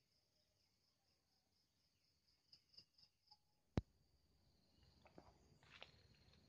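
Near silence with a faint, high-pitched insect trill pulsing steadily at about four pulses a second. A single sharp click comes just before four seconds in, followed by a faint low rumble with scattered soft ticks and rustles.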